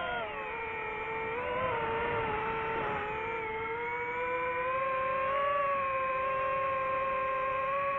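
DJI FPV drone's motors and propellers whining in flight, the pitch rising and falling with the throttle: it drops just after the start, lifts briefly about a second and a half in, then holds fairly steady.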